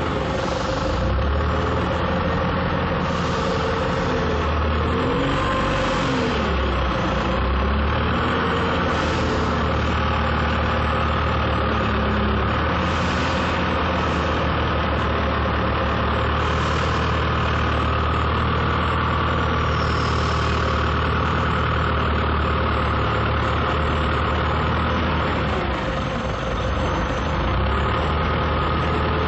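Hangzhou (Hangcha) forklift engine running steadily while the truck carries a loaded steel rack. Its pitch rises and falls a few times in the first several seconds and again near the end.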